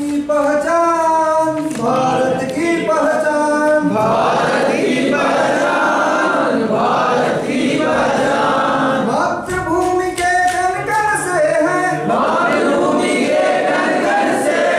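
A group of male voices singing a Hindi song together, with long held notes and no instruments.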